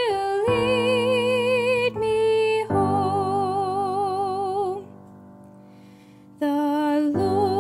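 Slow, tender background music: a melody of long held notes with vibrato over sustained low notes. It drops away for under two seconds about five seconds in, then resumes.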